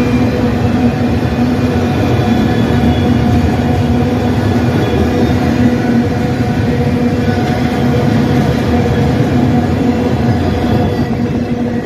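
Enclosed autorack cars of a CN freight train rolling past at close range: a loud, steady rumble of wheels on rail, with a steady low hum running through it.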